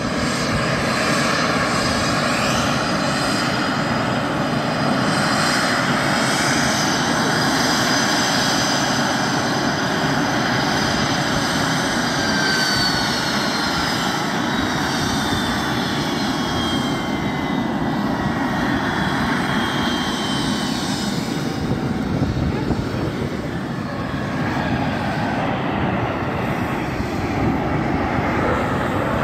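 Saab JAS-39 Gripen jet engine running on the flight line: a steady loud rush with high whines. From about twelve seconds in, the whines slide steadily down in pitch for several seconds.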